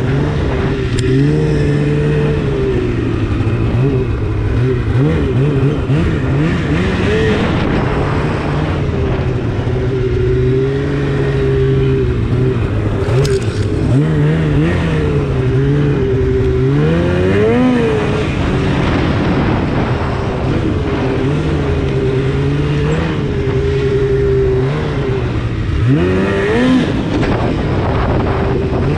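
A 2016 Polaris RMK 800's two-stroke twin engine, fitted with a Bikeman aftermarket exhaust can, running under part throttle as the snowmobile is ridden. The pitch dips and then rises as the throttle is eased off and reapplied, most clearly around the middle and again near the end.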